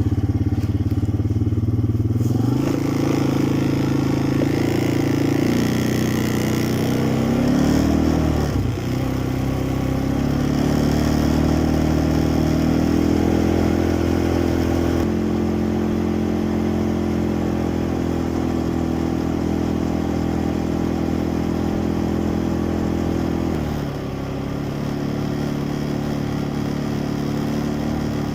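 Quad bike (ATV) engine running while riding, its pitch stepping up and down several times as the speed changes, with a dip about a third of the way in and a drop near the end.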